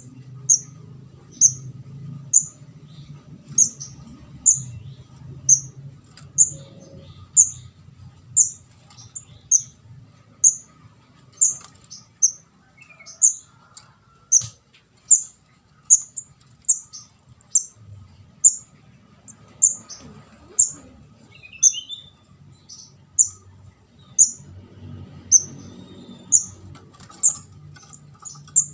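Juvenile kemade jawa ('ndas abang') calling: short, sharp high chirps repeated evenly, a little more than one a second, the call used as a trapping lure.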